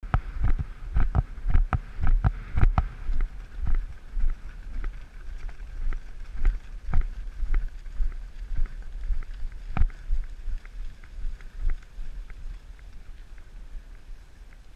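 Hoofbeats of a ridden horse moving at pace over soft field ground, a string of irregular thuds that jolt the camera, over a steady low rumble of wind on the microphone. The thuds are heaviest in the first few seconds and ease off toward the end.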